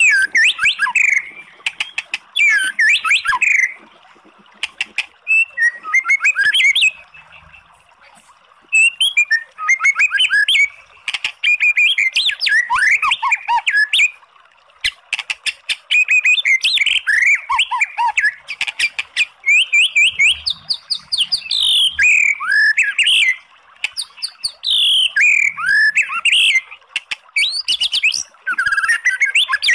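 White-rumped shama singing: spells of varied whistled phrases that swoop up and down, mixed with rapid sharp clicking notes, broken by short pauses every few seconds.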